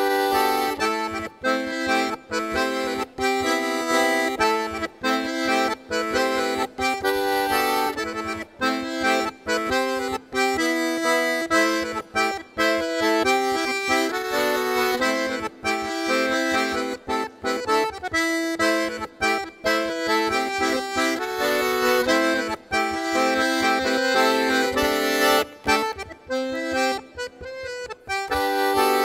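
Background music: a lively traditional folk dance tune with a steady rhythm.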